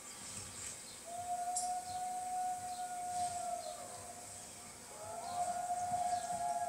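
Wolves howling through a TV's speakers: one long, steady howl that drops in pitch as it fades, then several overlapping howls rising in about five seconds in, with faint bird chirps behind.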